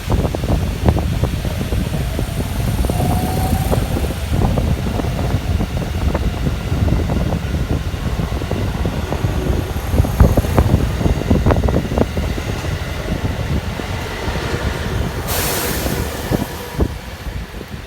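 JR West electric train running through the station: a heavy rumble with repeated sharp clacks of wheels over rail joints, and a brief hiss about fifteen seconds in.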